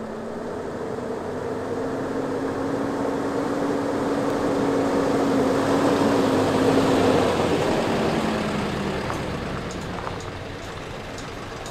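Pickup truck towing an empty flatbed trailer drives up and passes close by, its engine hum growing louder to a peak about six to seven seconds in, then fading as it goes by. A few light clicks near the end.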